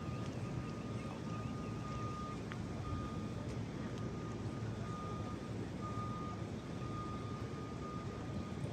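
A vehicle's backup alarm beeping over and over, a single steady-pitched beep, over a steady low rumble of engines or traffic.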